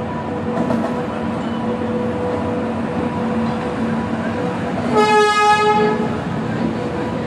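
Indian Railways passenger train running past with a steady rumble and hum. About five seconds in, a train horn blows once for about a second.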